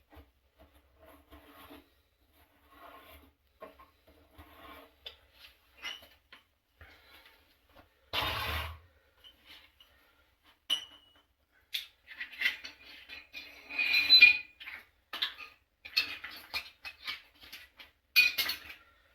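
Scraping and light metallic clinking as the threads of a water heater element port are cleaned by hand. The short, irregular scrapes grow busier and louder in the second half, with one longer, louder scrape about 8 seconds in.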